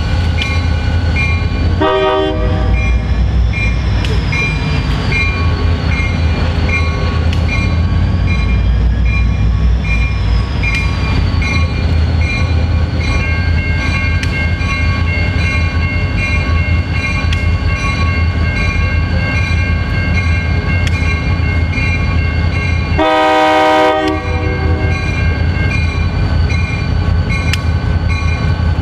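A pair of EMD GP39-2 diesel locomotives with turbocharged 12-cylinder engines rumble steadily as they pull a freight train past, close up. The locomotive horn sounds a short blast about two seconds in and a longer, louder blast of about a second near the end.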